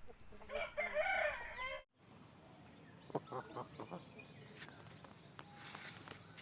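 Aseel rooster crowing, one call of about a second and a half, cut off abruptly, followed by quieter chicken clucking and short calls.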